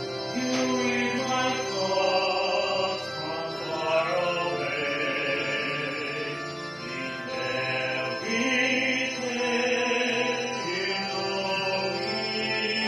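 A small group singing a slow song together in long, held notes, over a steady sustained accompaniment.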